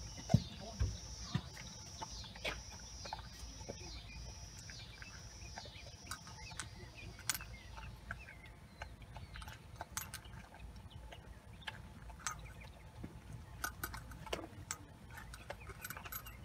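A dog eating from a bowl: scattered small clicks of chewing and licking, with one sharp thump just after the start. A high pulsing buzz, about three pulses every two seconds, runs in the background and stops about seven seconds in.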